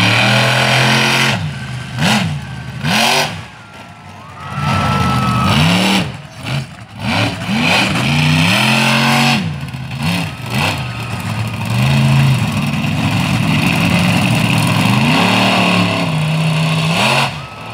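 Monster truck engine revving hard in repeated bursts, its pitch swooping up and down as the throttle is blipped, with a couple of short lulls in the first half.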